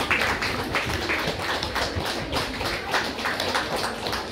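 Spectators clapping: many sharp claps in quick succession.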